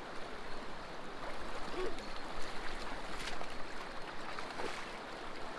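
River water rushing steadily, an even hiss with a few faint short chirps over it.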